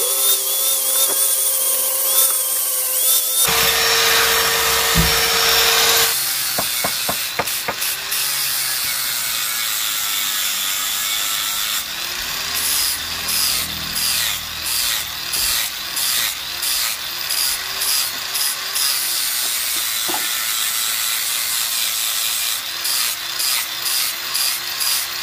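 Electric angle grinder with an abrasive disc grinding down a boat propeller blade: a steady motor whine, with the disc rasping against the metal in short, evenly repeated passes later on. The grinder is taking metal off the heaviest blade to balance the three-blade propeller.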